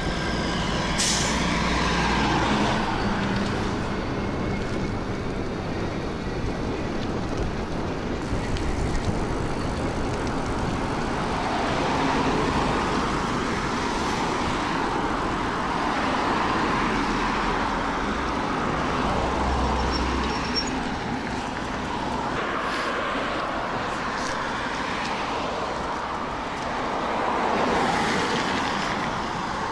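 Road traffic noise, with vehicles passing one after another as slow swells in a steady rush. There is a short sharp hiss about a second in.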